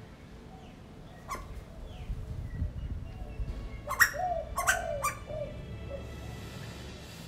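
Asian koel calling: one short sharp call about a second in, then three louder calls in quick succession around four to five seconds in.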